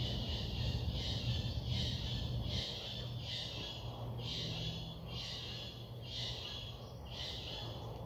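An animal's rasping call repeated in a steady rhythm, about one harsh note a second, each note about half a second long.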